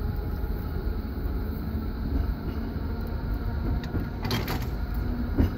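Seaton Tramway electric tram running along its track, heard from the open upper deck: a steady low rumble of wheels on rail with a faint steady hum. A brief higher hiss with a few clicks comes about four seconds in.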